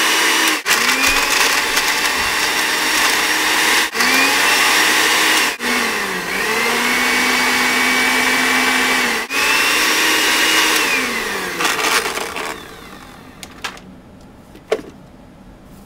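Countertop blender motor running flat out on a jar packed with toilet paper, a loud whine whose pitch sags and recovers, with four brief cutouts. About eleven seconds in it slows and winds down, and a few sharp clicks follow.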